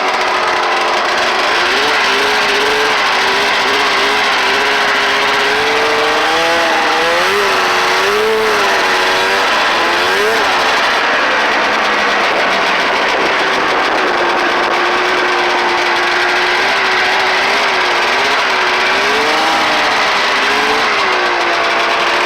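Ski-Doo Blizzard 9700 snowmobile's two-stroke engine with twin exhaust pipes, running loud and revving up and down again and again at part throttle while being ridden.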